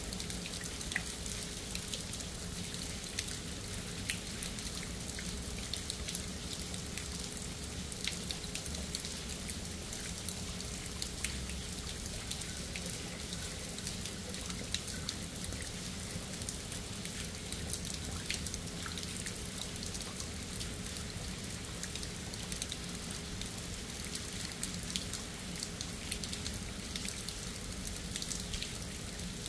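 Steady rain, with many separate drops ticking sharply over an even hiss. A faint low steady hum runs underneath.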